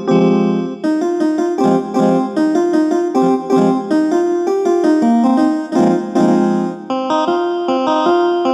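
Background music played on piano or electric piano, a quick run of notes.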